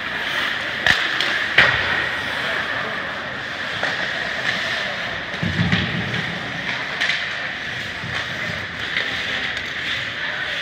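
Ice hockey play in a rink: a steady hiss of skates on the ice, with sharp clacks of stick and puck, the loudest two about a second and a second and a half in, and a brief low thump about five and a half seconds in.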